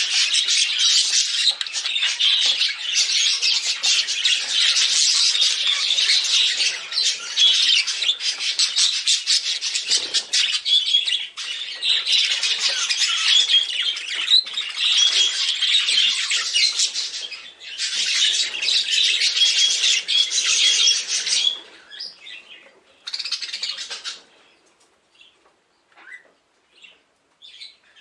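A flock of budgerigars chattering and warbling in a continuous stream of high-pitched chirps. About three-quarters of the way through the chatter breaks off, with one more short burst and then only a few scattered chirps.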